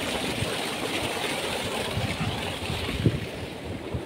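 Water gushing from a tubewell's steel outlet pipe into a concrete tank: a steady rushing and churning with a low rumble, and a brief low thump about three seconds in.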